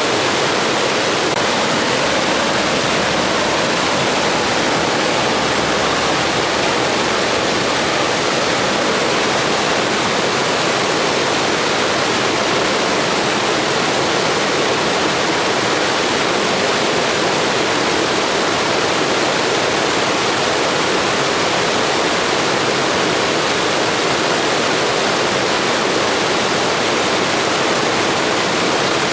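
Blizzard wind: a steady, even rushing hiss that does not rise or fall in gusts.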